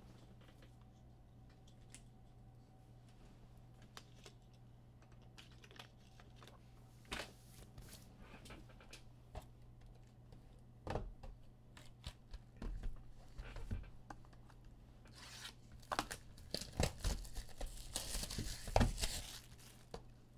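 Topps Stadium Club baseball card pack being torn open: after a few quiet seconds come scattered clicks of cards being handled, then a longer stretch of wrapper tearing and crinkling near the end. A low steady electrical hum runs underneath.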